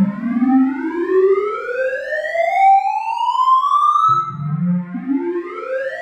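Computer-generated tones sonifying a sorting algorithm, each tone's pitch set by the value being accessed. They climb in small steps from low to high over about four seconds, and a second climb starts from the bottom about four seconds in.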